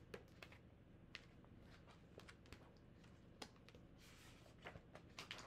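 Near silence with faint scattered clicks and a short soft rustle about four seconds in: a hardcover picture book being handled and a page turned.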